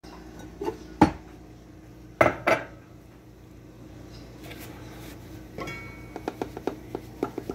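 Ceramic mugs clinking as one is taken out from among others in a cabinet, then knocked down onto a stone counter: four sharp clinks in the first few seconds, two of them loudest. In the last couple of seconds, a quick run of light rhythmic ticks begins.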